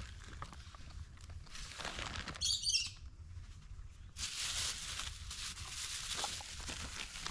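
Plastic bag rustling and crinkling as food is handled on a plastic tarp, continuous from about four seconds in. A short high chirp sounds about two and a half seconds in.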